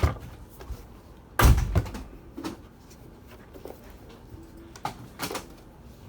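Knocks and clunks of a plastic thermal receipt printer being handled on a work surface, with a heavy thud about a second and a half in and a few lighter knocks later.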